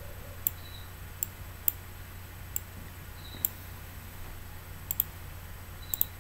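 Computer mouse clicking while drawing on screen: about nine short, sharp clicks at irregular intervals, two of them in quick pairs about five and six seconds in. A faint steady low hum runs underneath.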